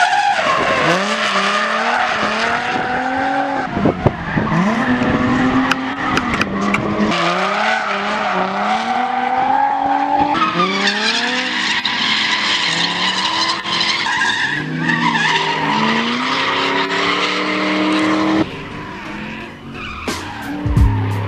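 Drift cars sliding: engines revving up and down again and again over the screech of spinning tyres. It all falls quieter near the end.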